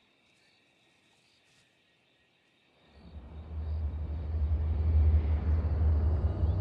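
Faint night insects chirring steadily, then, from about three seconds in, a low ominous drone from the soundtrack music swells up and grows loud.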